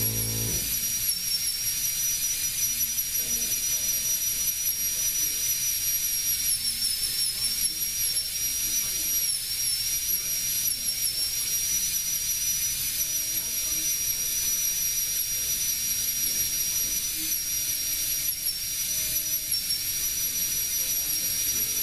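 High-speed handheld rotary tool with a number 3 carbide bit, stippling wood: a steady high-pitched whine with a fainter, higher overtone, its pitch dipping slightly now and then as the spinning bit is tapped into the stock.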